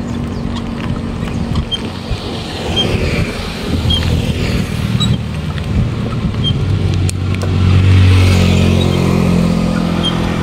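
Motor vehicle engines passing on the road, one growing loudest about eight seconds in, heard over steady road noise from a moving bicycle.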